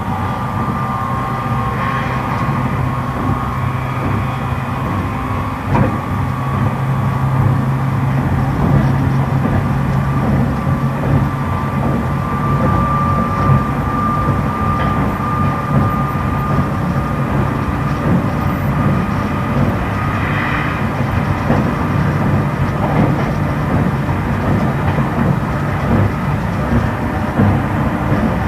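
Running sound inside a JR East E353 series electric train's motor car: steady traction motor and IGBT-VVVF inverter whine over the rumble of wheels on rail, with a few brief knocks.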